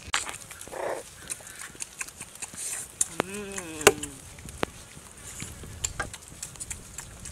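Puppies eating, with many short wet chewing and smacking clicks. About three seconds in, one of them gives a single wavering whine lasting about a second.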